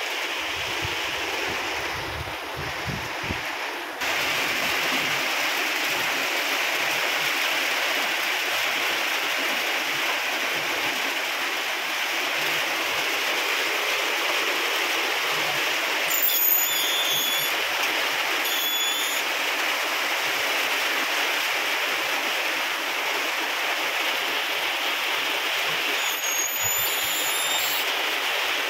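Steady rain falling hard, a continuous hiss of drops on the ground, puddles and roofs, stepping up a little about four seconds in. A few brief high chirps come through about halfway and again near the end.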